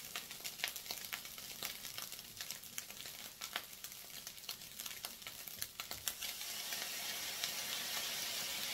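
Rice frying in oil in a hot stainless-steel pan, sizzling with many small crackles. About six seconds in, the sizzle turns into a louder, steadier hiss.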